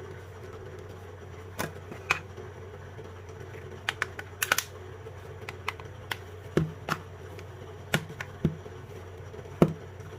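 About a dozen irregular sharp clicks and light knocks of a power bank's plastic casing being fitted and snapped back together by hand, over a steady low hum.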